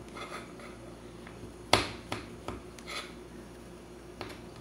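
Metal spoon scraping out the soft flesh of a thick aubergine slice, with a few sharp clicks of the spoon against the slice, the loudest about two seconds in.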